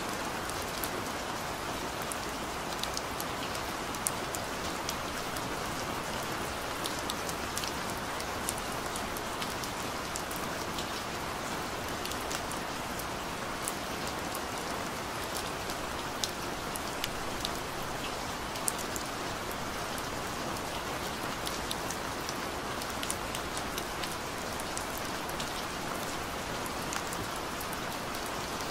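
Steady rain: an even hiss with many small, sharp drop ticks scattered through it.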